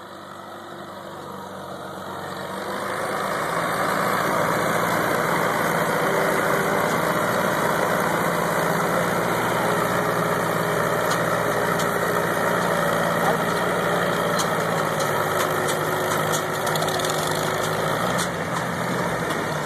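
Farmall M tractor's four-cylinder engine working hard under load while pulling a sled. It grows louder over the first few seconds as the throttle is opened wide, then runs steadily at full throttle, easing slightly near the end.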